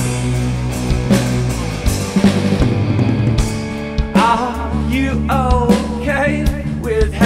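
Rock band playing live with electric guitar and drum kit; a man's voice starts singing about four seconds in.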